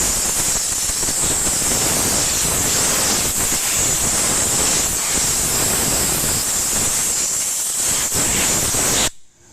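Steady, loud hiss of a high-pressure cleaning jet being worked over a Farmall tractor engine to clean it before disassembly, cut off suddenly near the end.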